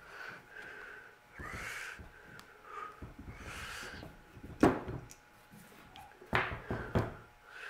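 Sharp knocks and clunks as a disc brake caliper and its parts are handled on a workbench: one loud knock about halfway through and two more near the end, with faint wavering calls in between.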